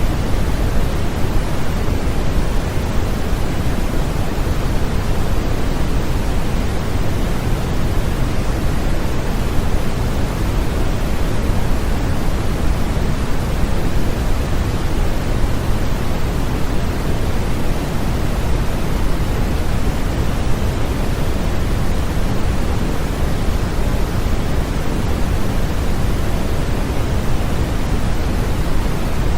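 Steady synthetic noise of the white-noise sleep-aid kind, weighted toward the low end like pink noise, unchanging throughout.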